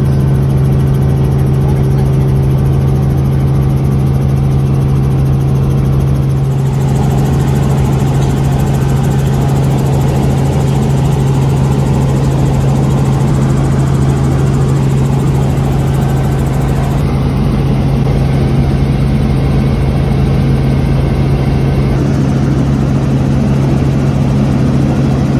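Helicopter in flight heard from inside the cabin: a loud, steady drone of rotors and turbine engine with a constant low hum. About six seconds in the noise turns rougher and fuller.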